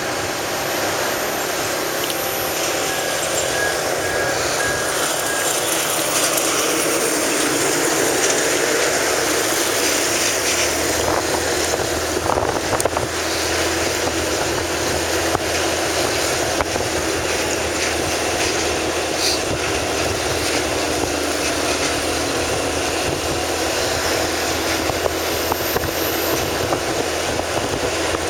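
Steady rushing wind and road noise from a moving vehicle, with a low engine hum that comes in about ten seconds in and holds steady.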